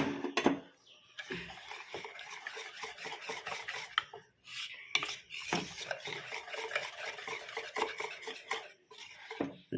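Spoon stirring thick flour batter in a bowl, scraping and clinking against the bowl's sides, with a short pause about halfway through. A sharp knock comes right at the start.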